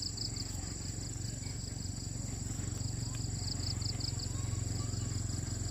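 Insects chirping in repeated pulsed groups with a steady high whine, over a steady low rumble.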